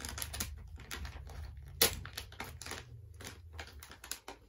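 Foil blind-bag packet crinkling and crackling as it is handled, in rapid irregular crackles with one sharp click about two seconds in.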